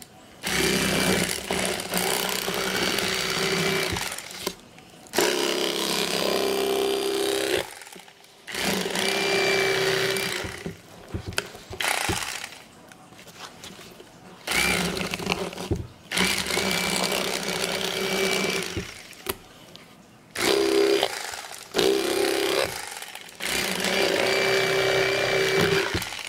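Electric fillet knife cutting through crappie, running in bursts of a few seconds each with short pauses between, a steady motor buzz with a high whine.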